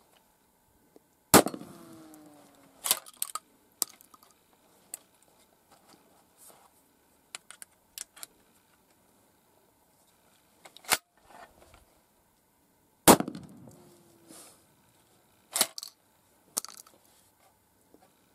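Two 12-gauge shotgun blasts about twelve seconds apart, each followed by a brief ringing that falls in pitch. Between and after the shots come the clacks and clicks of a reverse-cycle pump action being worked and shells being single-loaded by hand.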